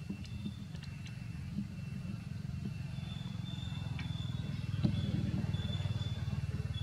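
A low, steady motor-like rumble that grows louder about five seconds in, with faint high chirps and a few small ticks above it.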